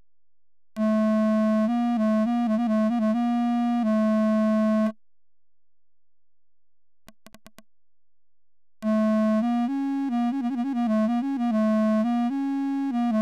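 Virtual clarinet from a real-time wave simulation of a drawn single-reed bore with tone holes, playing two phrases of a sustained low reed tone. Each phrase is broken by a quick run of changing notes as the tone holes open and close. A few faint clicks sound in the pause between the phrases.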